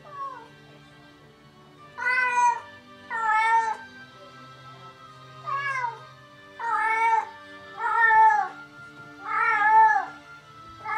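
Domestic cat meowing over and over, about seven drawn-out calls a second or so apart, each bending down at the end. This is the lonely calling of a cat left by itself, which its owners tie to separation anxiety. Faint music plays underneath.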